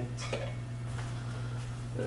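Steady low hum with faint handling noises as an object is lifted off a turntable, and a light click about a second in.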